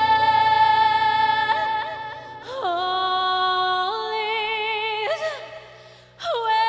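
A woman singing a slow ballad with instrumental accompaniment, holding one long note with vibrato, then moving through a few more sustained notes; the voice fades briefly near the end before a new note begins.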